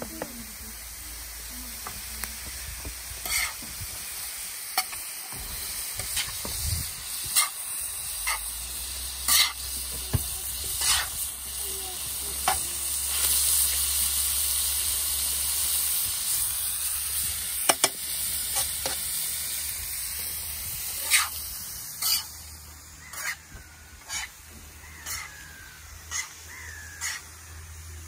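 Minced meat and mixed vegetables sizzling on a large round griddle pan over a fire, while a metal spatula stirs them, clacking and scraping against the pan every second or so. The sizzle grows louder around the middle.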